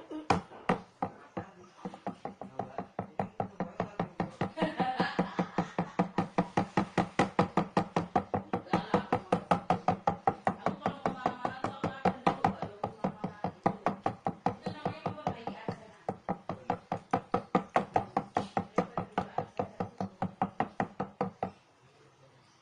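Slime being squeezed and kneaded by hand, making a fast, regular run of sticky clicks and pops, about four a second, that stops about a second before the end.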